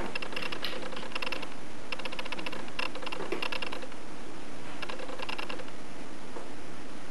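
Raw potato fries being cut and handled on a dry metal cookie sheet: five short bursts of rapid light clicking and clattering, with a pause in the middle before the last one.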